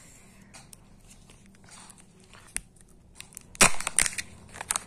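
The foil wrapper of a Kinder Joy egg being peeled and torn open: a few faint crinkles, then a louder cluster of sharp rustles about three and a half seconds in, lasting about a second.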